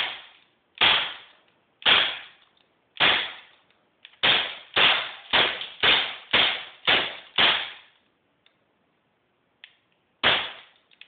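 Crosman P10 CO2 BB pistol firing about a dozen shots: four about a second apart, then seven in quick succession at roughly two a second, and one more after a pause of about three seconds. Each shot is a sharp crack with a short decaying tail.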